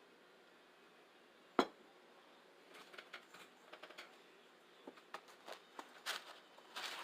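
Close-up eating sounds of a spaghetti dinner. A single sharp tap comes about one and a half seconds in. From about three seconds on there is a faint run of small irregular mouth clicks and smacks of chewing.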